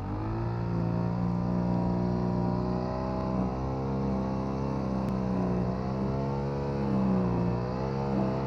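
Monotech MGX35 four-stroke brush cutter engine running at steady speed, its pitch dipping briefly a couple of times as the cutting head meets the grass.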